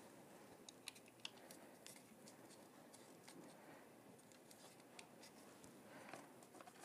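Near silence: quiet room tone with a few faint, light clicks, as of small printer parts being handled and fitted back on.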